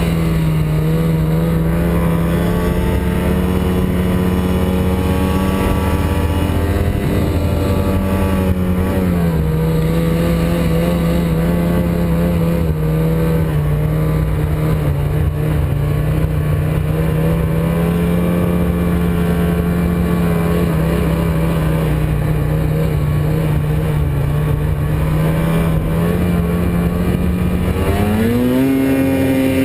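Snowmobile engine running steadily under way, its pitch holding nearly level with small shifts, then climbing as it revs up near the end.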